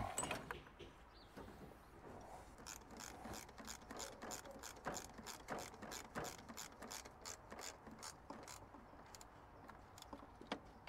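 Socket ratchet wrench clicking in runs of quick clicks, several a second, as the intake manifold bolts are snugged down. A single sharp knock at the very start.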